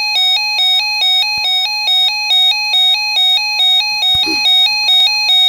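Radio emergency alert tone: a loud, buzzy electronic tone stepping back and forth between two close pitches, each held about a quarter second, announcing a flash flood watch. A faint low thump comes about four seconds in.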